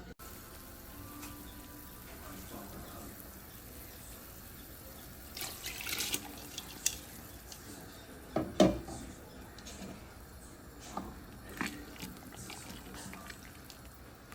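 Water running steadily, as from a sink tap, with a few short clinks and clatters of kitchenware, the loudest about eight and a half seconds in.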